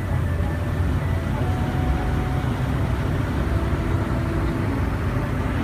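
Steady low rumble inside a moving Wings of Tatev aerial tramway cabin as it runs along its ropes, with faint steady whining tones above it.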